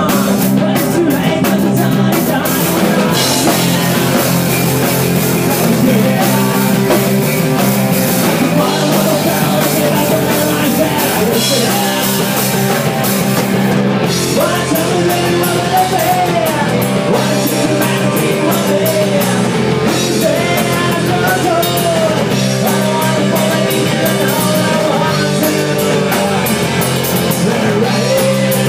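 Live rock band playing loud: electric guitars, bass and a drum kit with cymbals.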